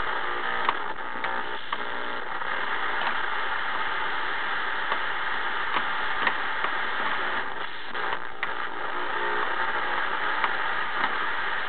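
Static hiss from the speaker of a homebrewed Ramsey 2-meter FM receiver with no station on the channel: the sound of an empty band. Faint tones come through under the hiss twice, with a few small clicks.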